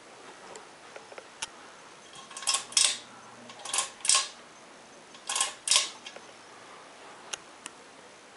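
Ceiling fan's metal pull-chain switch being pulled three times, each pull a quick pair of rattling clicks, with a few lighter ticks of the chain before and after.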